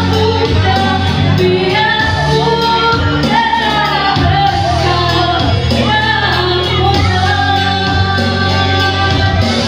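A song playing loudly: a singing voice carrying a wavering melody over held bass notes that change every second or so.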